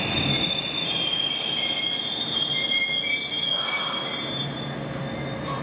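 A 7000-series subway train braking into an underground station platform, with a high, steady metallic squeal from its running gear over the rumble of the wheels. The squeal dies away near the end as the train comes almost to a stop.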